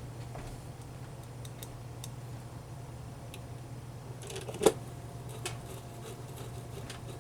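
Sony PS-LX220 belt-drive turntable running with its platter spinning: a steady motor hum with scattered light ticks and rattles, and one louder sharp click about four and a half seconds in. The rattle comes from metal parts set vibrating by the turning platter.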